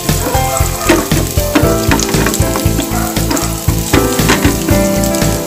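Chopped onion sizzling in hot sunflower oil in a nonstick frying pan, stirred with a wooden spatula that clicks and scrapes against the pan. Background music with a steady beat plays underneath.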